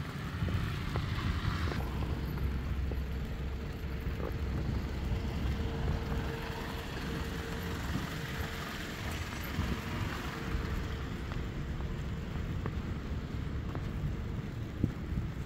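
Road traffic on a snow-covered street: a steady low rumble, with a faint steady hum for several seconds in the first half.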